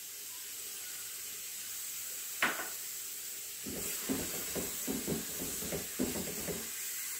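Spiced vegetables sizzling with a steady hiss in a kadai, with a single tap about two seconds in; from about the middle, a spatula stirs and scrapes them in quick strokes, several a second, for about three seconds.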